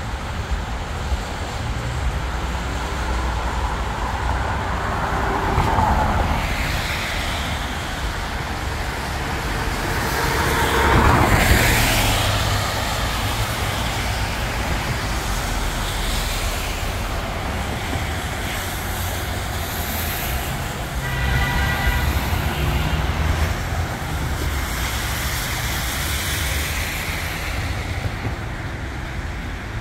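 Street traffic on wet pavement: cars passing with tyre hiss over a steady low rumble, the loudest pass about eleven seconds in. A brief high tone sounds about two-thirds of the way through.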